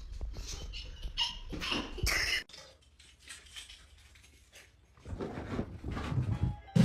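A pet's noises that cut off suddenly about two and a half seconds in; after a quieter stretch, irregular sound returns about five seconds in.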